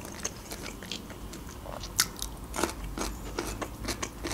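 Close-miked mouth sounds of a person chewing pieces of fried beef offal (heart and liver): soft wet smacks and clicks at irregular intervals, a couple of sharper ones about two seconds in.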